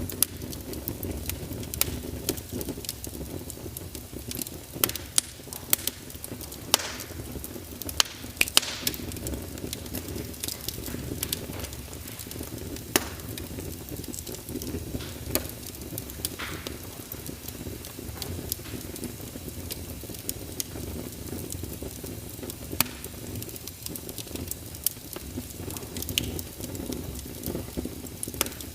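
Wood fire crackling in a fireplace: a steady low rumble and hiss with irregular sharp pops and snaps, a few louder ones.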